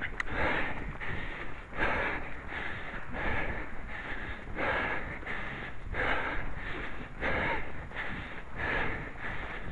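A runner's heavy breathing while running: regular puffs of breath, a little over one a second.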